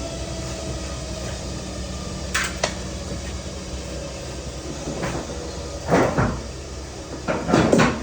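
Metal parts and tools being handled in a welding shop: a few sharp clanks and knocks, one pair about two and a half seconds in and clusters near the end, over a steady workshop hum.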